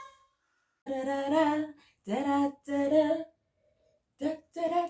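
A woman singing a tune in five short phrases, with silent gaps between them.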